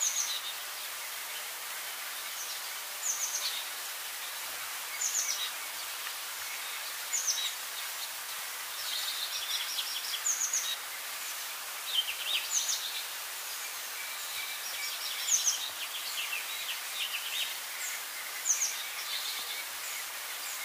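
Wild birds calling: one repeats a short, high call every two to three seconds while others add quicker clusters of chattering notes. Underneath runs a steady outdoor hiss.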